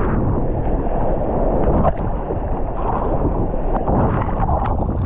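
Breaking surf and rushing, churning water right at the microphone, a steady heavy wash with one sharp knock about two seconds in.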